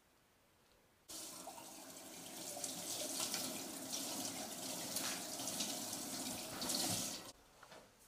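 Kitchen tap running into a plastic basin in the sink, water splashing over hands washing under it. It starts suddenly about a second in and cuts off near the end.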